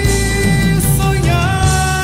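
A slow pop ballad sung in Portuguese, with the singer holding long, wavering notes over a steady instrumental backing.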